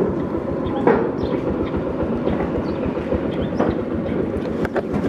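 Steady rumble of a moving vehicle, with scattered rattles and clicks.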